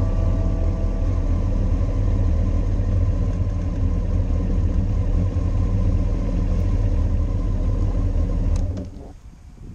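Motorcycle engine idling steadily, then cut off abruptly near the end.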